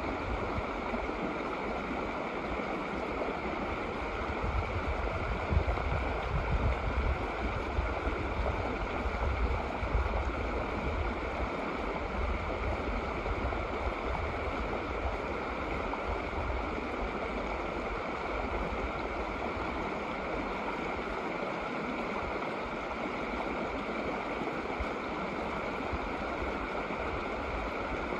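Shallow snow-melt mountain creek flowing over rocks: a steady rushing and gurgling of water, with uneven low rumbles in the first dozen seconds.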